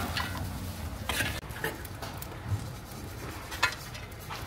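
Metal cooking pots and utensils clinking and scraping now and then, over a steady low background.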